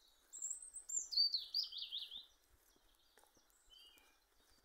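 A songbird singing: one phrase of high, quick notes that steps down in pitch over about two seconds, followed a little later by a few short, fainter notes.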